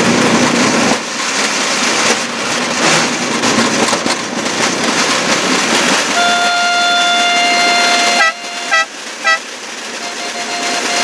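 A homemade rail draisine running along old track, with a steady rushing noise from the ride. About six seconds in, a horn sounds one long blast of about two seconds, then three short toots.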